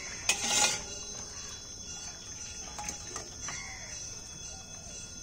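Cooking pot taken off the stove with a short, loud metal scrape just after the start, followed by faint short bird calls.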